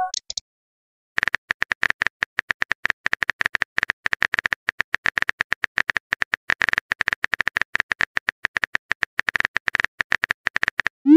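Phone keyboard typing sound effect: rapid, irregular clicks, several a second, starting about a second in, followed by a short rising pop at the very end.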